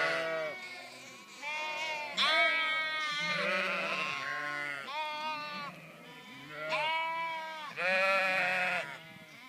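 A flock of black-faced sheep bleating, many overlapping calls one after another, loudest about two seconds in and again near the end.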